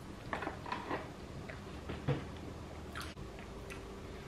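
A person chewing sushi: a few short, irregular chewing clicks and mouth smacks, the loudest about two seconds in.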